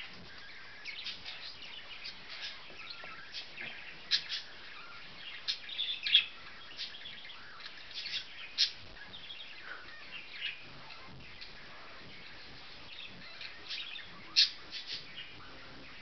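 Cockatiel giving short, sharp chirps at irregular intervals, some single and some in quick little clusters.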